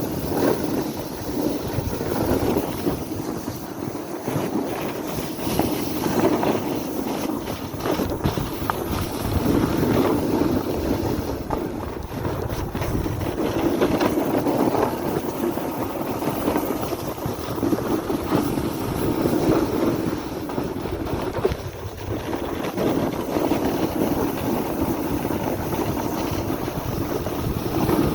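Wind buffeting the microphone: a continuous rushing noise that swells and eases every few seconds.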